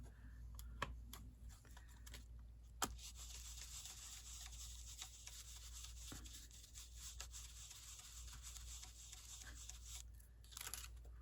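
Faint, steady rubbing on paper for several seconds, after a few light taps, as paper-craft materials are pressed and worked.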